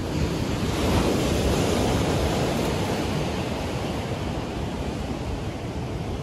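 Ocean surf rushing and washing below the pier, swelling about a second in and then slowly easing off.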